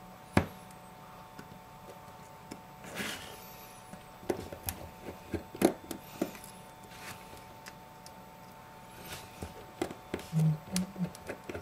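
Scattered light clicks and taps of a small precision screwdriver working on the phone's metal home-button bracket as its two tiny screws are taken out.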